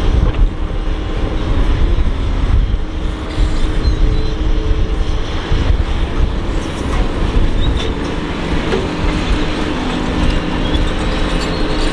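Doosan DX225LC hydraulic excavator's diesel engine and hydraulics running under load with a steady low rumble as the machine swings round and dumps a bucket of soil into a dump truck.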